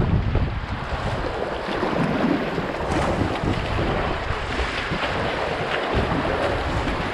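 Rushing, splashing water of a small river rapid as a whitewater kayak runs through it, the bow breaking through the white water, with wind buffeting the microphone.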